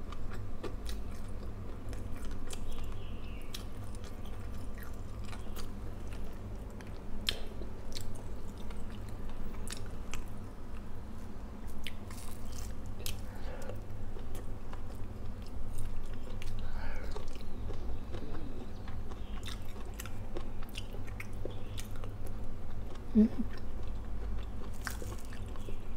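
A person chewing and biting fried fish and rice eaten by hand, with many scattered small clicks, over a steady low hum.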